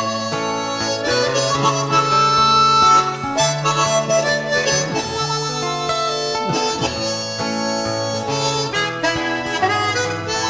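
Background music: a harmonica melody with guitar accompaniment.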